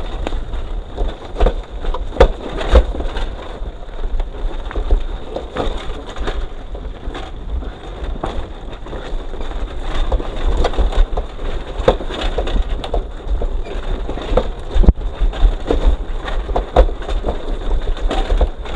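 Tyres crunching and rattling over a rough dirt track as the vehicle coasts with its engine off, with many irregular knocks and a low wind rumble on the microphone.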